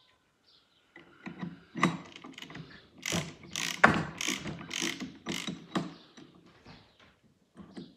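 Spanner working the collet nut of a Festool router to loosen and change the bit. It makes a run of sharp metallic clicks, about two or three a second, loudest in the middle.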